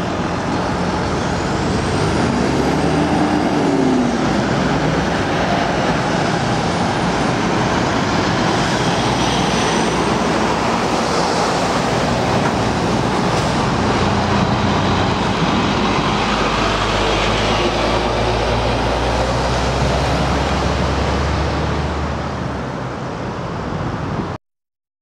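Road traffic with heavy trucks driving past: diesel engines and tyre noise. A truck's engine note rises and falls about three seconds in, and a deep engine rumble comes up from about sixteen to twenty-two seconds.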